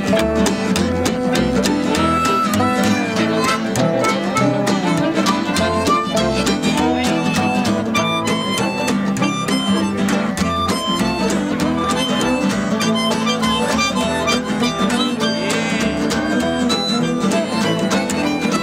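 Acoustic bluegrass band playing an instrumental break, with a harmonica taking the lead over mandolin, guitar and upright bass.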